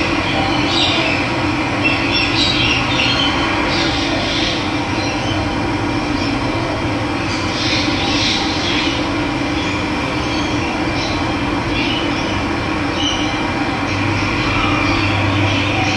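Running water making a steady rush, with scattered bird calls over it.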